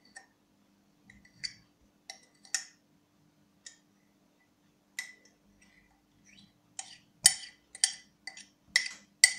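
Irregular sharp taps and clicks on a cup as thick sour cream is knocked and scraped out of it into a plastic bowl, coming faster near the end. A faint steady hum lies underneath.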